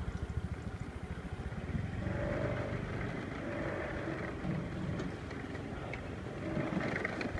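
Small farm tractor engine chugging with a regular beat as it pulls a loaded cart of sacks along a dirt track.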